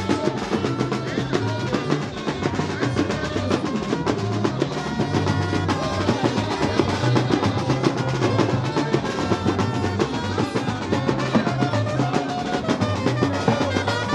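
A drum-and-brass band playing: bass and snare drums beat a busy, steady rhythm under held horn notes.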